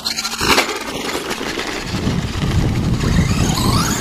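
Traxxas Stampede 2WD RC truck's brushless electric motor whining, rising in pitch near the end as it accelerates over rough dirt. There is a sharp thump about half a second in as the truck bounces, and a low rumble through the second half.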